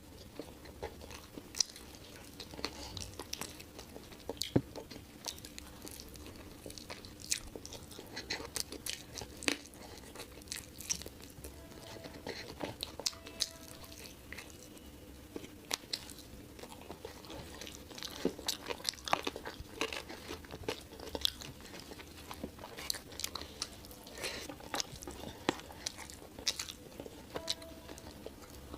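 A person chewing and eating rice and curry close to the microphone, with many small irregular mouth clicks throughout.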